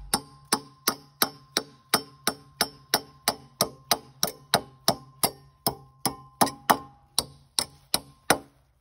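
Hammer blows on a steel bracket fixed to a wooden log: quick, even taps, about three a second, each with a short metallic ring. The tapping stops shortly before the end.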